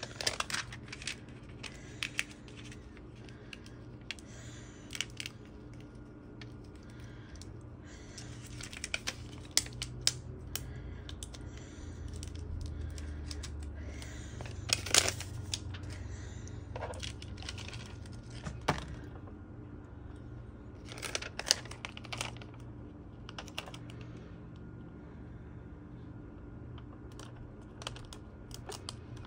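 Hands handling vinyl transfer tape and its paper backing and moving a plastic squeegee and an acrylic bottle about on a glass craft mat: scattered light taps, clicks and crinkles at an irregular pace, the sharpest about halfway through.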